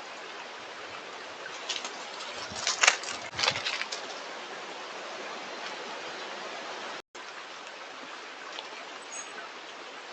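Stream running steadily, with a bird's wings flapping in a short flurry about two seconds in. The sound cuts out for an instant about seven seconds in.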